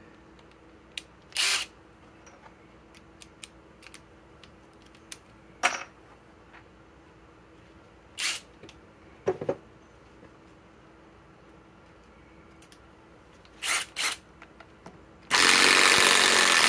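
Scattered clicks and knocks of bits and a tool being handled, then, about fifteen seconds in, a Master Force Boost cordless impact driver starts hammering a long timber lock screw into a wooden beam, loud and continuous.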